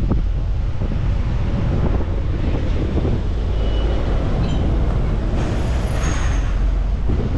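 Diesel freight locomotive running with a steady low rumble, a hiss of air rising near the end.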